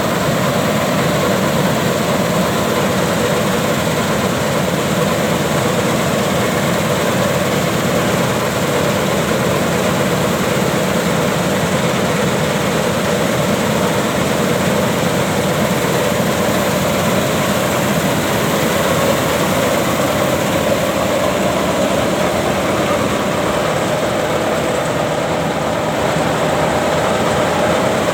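Dasmesh 9100 combine harvester running, a loud, steady machine drone that holds even throughout.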